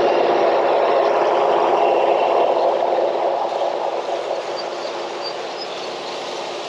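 Toyota LandCruiser 79 Series four-wheel drive driving through shallow floodwater on a dirt track: a steady drone of engine and tyres with water washing around the wheels, easing off about three seconds in.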